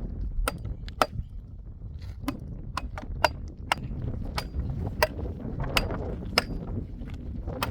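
A run of sharp clicks or knocks, roughly two a second and slightly uneven, over a low steady rumble.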